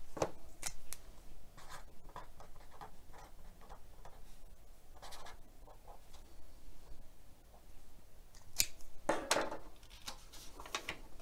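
Pen writing by hand on a paper sticky note: light, scratchy strokes, then a few louder rubs near the end as the note is handled.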